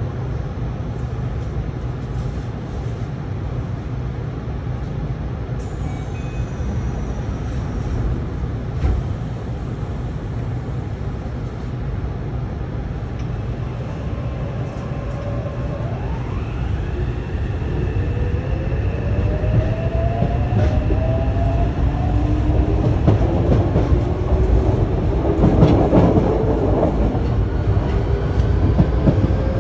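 Yokohama Municipal Subway Blue Line train running, heard at the gangway between cars: a steady low rumble, joined about halfway through by a rising electric motor whine as the train picks up speed. It grows louder toward the end, with a burst of wheel clatter over the rails.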